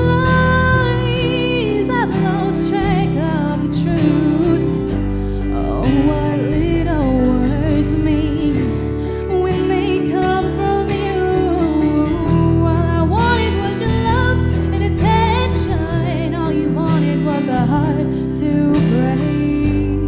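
A song: acoustic guitar strummed under a woman's singing voice.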